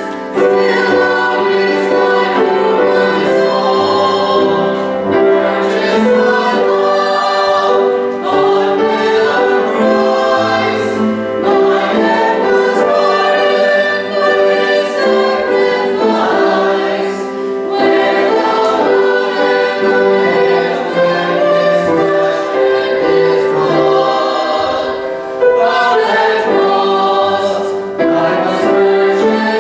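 Small mixed church choir, one man and five women, singing a hymn.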